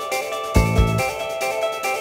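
Background music: an instrumental passage of a song with sustained notes over a beat, with a pair of deep bass-drum hits about half a second in.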